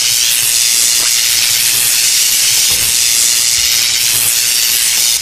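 Loud, steady hissing sound effect, like rushing steam, used as an energy blast from a toy lightsaber.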